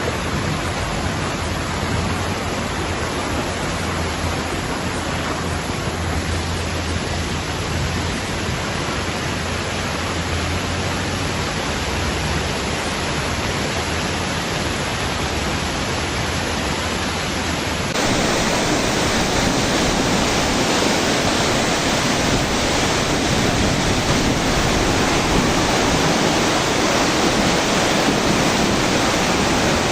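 Floodwater rushing, a steady, loud wash of noise with no breaks; about 18 seconds in it cuts to a louder, fuller stretch of the same rush.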